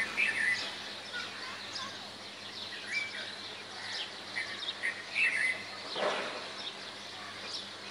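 Birds chirping in short, scattered calls over a steady background hiss, with a brief rushing swish about six seconds in.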